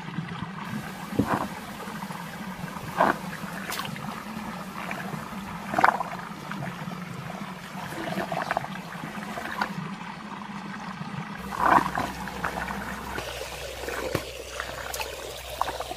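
Water swirling and gurgling down a whirlpool vortex over a steady low hum, with a few sudden louder gurgles.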